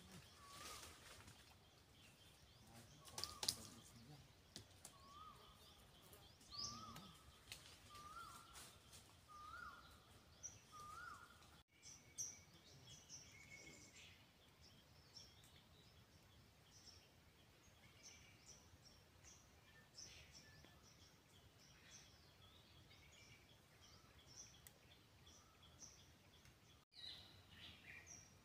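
Faint outdoor ambience with wild birds calling: a run of short notes repeated about once a second, each a little higher in pitch than the last, over the first ten seconds or so, then scattered high, thin chirps. A single sharp crackle about three seconds in.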